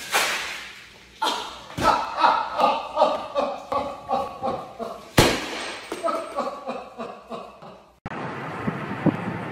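A sudden crash as something white bursts over a woman, then several seconds of hard, repeated laughing with a couple more thumps. Near the end it cuts to steady car-cabin noise.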